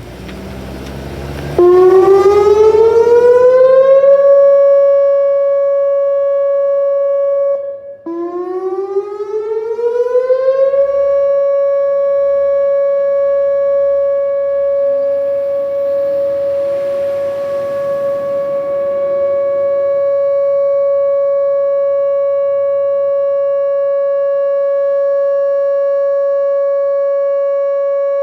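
Whelen WPS-2910 electronic outdoor warning siren sounding its steady alert tone: the tone winds up in pitch for about two seconds and then holds steady, cuts out briefly, then winds up again and holds one steady pitch.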